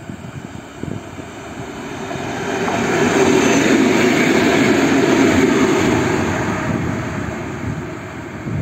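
A pair of ST44 diesel locomotives running light pass close by. The drone of their two-stroke V12 diesel engines swells over about three seconds, stays loud for a few seconds, then fades away.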